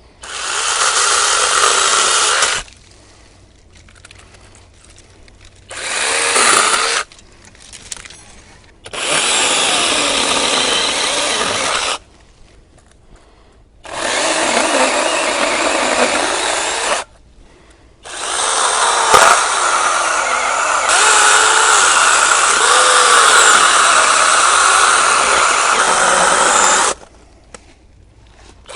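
Orblon 6-inch brushless battery mini chainsaw cutting wood in five bursts, its whine dipping and rising as the chain bites; the last burst is the longest. It is running on a DeWalt 20V battery that is nearly flat.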